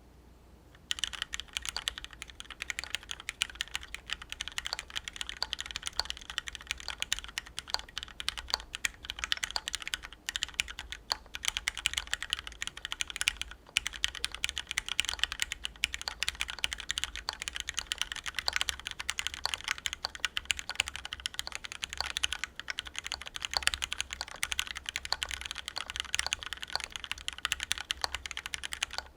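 Continuous fast typing on a custom aluminium mechanical keyboard (Vulcan X KBDfans MAJA) fitted with lubed Cherry MX Black linear switches, a brass plate, Poron foam dampening and GMK keycaps. The rapid key clacks start about a second in.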